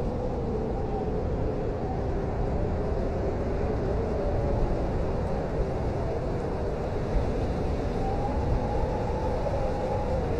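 Blizzard wind: a steady low rumble with a howling whistle that slowly rises and falls in pitch.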